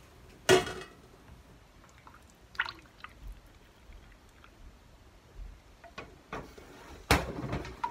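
Thick soap batter pouring and dripping from a container into a silicone loaf mold, quiet and wet. Two short, sharp sounds stand out, one about half a second in and another near the end.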